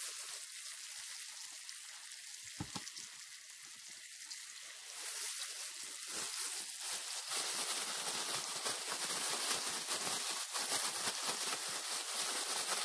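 Pieces of flour-dredged pike sizzling in a frying pan on a portable gas stove, with fine crackling; the sizzle gets louder about five seconds in.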